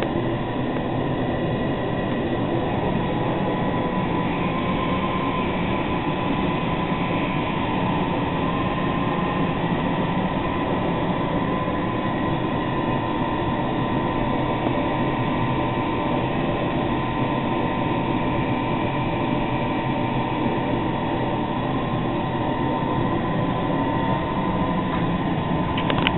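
Small electric brewing pump running steadily: a constant mechanical hum with a faint high whine.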